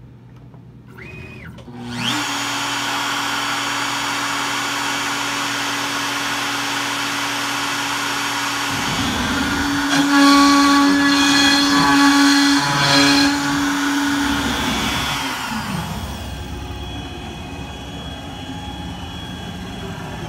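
CNC trim-router spindle switching on and spinning up with a rising whine about two seconds in, then running steadily. It cuts into a wood test piece, louder and rougher for about five seconds, then winds down with a falling whine, leaving a quieter steady whir of the machine's motors as it moves.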